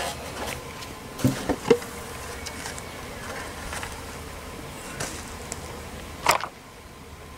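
Honeybees humming steadily around a stacked wooden box hive. Several wooden knocks come about a second and a half in, and one sharp knock comes near the end, as the hive's wooden drawer is handled.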